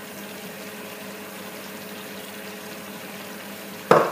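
Chicken curry simmering in a steaming pot on a gas hob: a steady, even hiss with a faint hum. Just before the end comes one sudden loud clatter as the spatula is worked in the pot.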